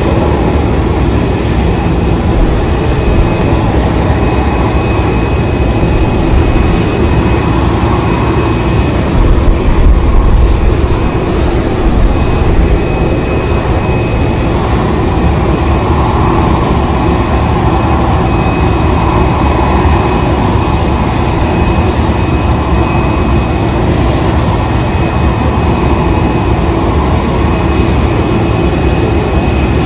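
Parked airliner running on the ground: a steady, loud, low rumble with a thin high whine held over it, swelling slightly about ten seconds in.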